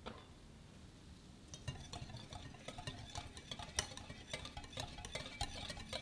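Wire whisk beating egg yolks in a glass bowl, its wires clinking quickly and irregularly against the glass, starting about a second and a half in. A single light knock comes at the very start.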